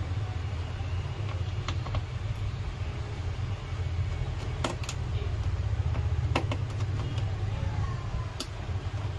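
A few sharp clicks and taps of plastic and metal as parts of a laptop's opened case are handled, over a steady low hum.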